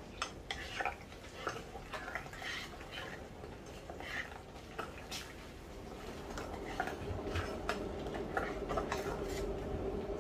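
A spoon stirring melting shea butter into oils in a stainless steel pot, with irregular light clinks and scrapes against the pot's side. A faint steady hum comes in during the second half.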